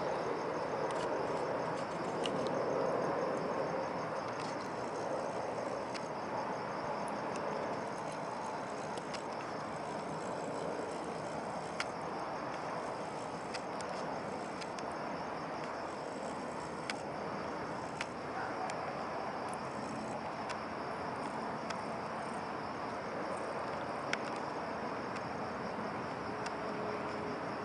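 Insects, such as night crickets, trilling steadily at a high pitch over a constant background hiss, with a few brief sharp clicks.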